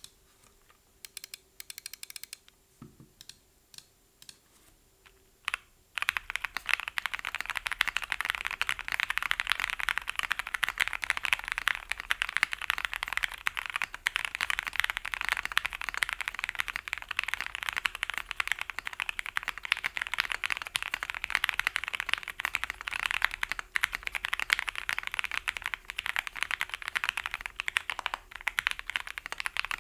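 Fast continuous typing on a Thera75 custom mechanical keyboard built plateless with lubed and filmed JWK Seal switches on 57g springs and PE foam. A few scattered keystrokes come first, then steady rapid typing starts about six seconds in.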